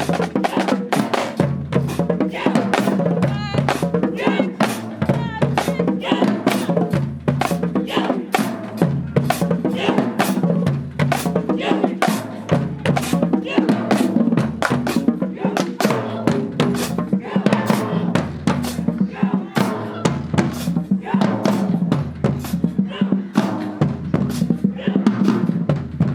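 High school marching band playing, with the drumline's rapid snare and bass drum strokes over brass, and a low bass line that repeats about every two seconds.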